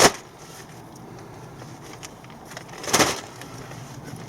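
Plastic carrier bag being handled and crinkling in two short bursts, one at the start and one about three seconds in.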